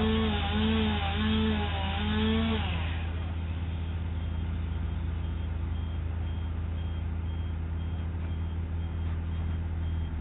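A large engine running steadily at a low hum, with a wavering, pulsing motor whine over it for the first three seconds that then stops. From about three seconds in, a vehicle's reversing alarm beeps faintly and evenly, about twice a second.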